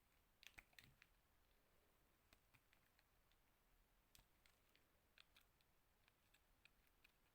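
Faint, crisp clicks and crackles of a knife cutting into a bar of soap: a quick cluster about half a second in, then single clicks scattered every second or so.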